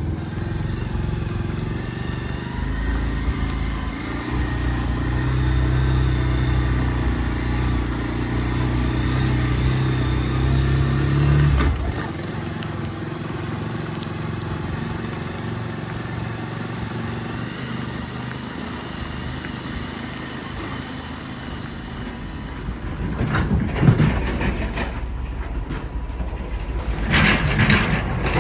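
A vehicle engine running with a deep, steady hum that drops away suddenly about twelve seconds in. It runs on more quietly, with a few clattering knocks near the end.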